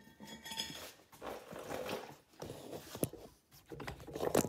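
Handling noise as the camera is picked up and moved: rustling and scraping, with a few sharp knocks, the loudest near the end.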